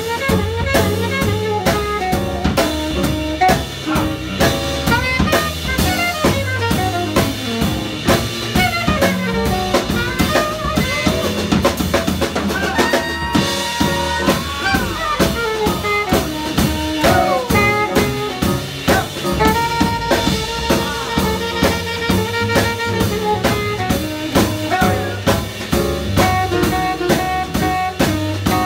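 Small jazz combo playing an instrumental break: a saxophone solo with bending, wandering lines over a drum kit and upright bass.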